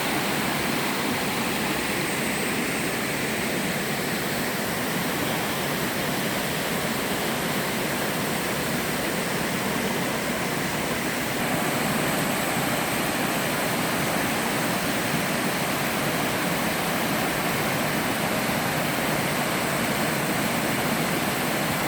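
Small slab waterfall in a mountain stream, water sliding and spilling over rock: a steady, even rush of water, a touch louder from about halfway through.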